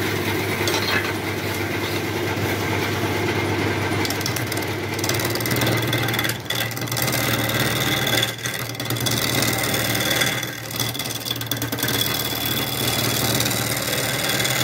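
Wood lathe motor running with a steady hum while a turning tool cuts into a spinning octagonal wooden blank, roughing it down to a round cylinder. The harsh cutting noise drops out briefly a few times as the tool lifts off the wood.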